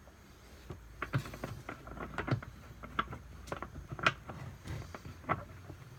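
Irregular light clicks, taps and rustles of things being handled and set down, about a dozen over a few seconds, starting about a second in.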